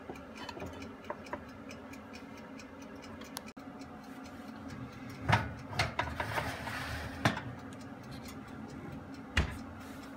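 Lidded metal roasting pan and oven rack being pushed into the oven: a few light clinks about a second in, then several metal clanks with a scrape between about five and seven and a half seconds in, and the oven door shutting with a thud near the end. A faint, even ticking and a low steady hum run throughout.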